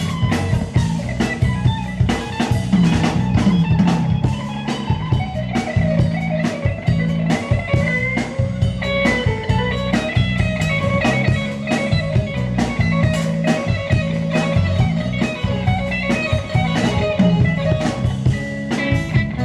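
Live band playing an instrumental: electric guitar lines over bass and drum kit, the drums keeping a steady beat.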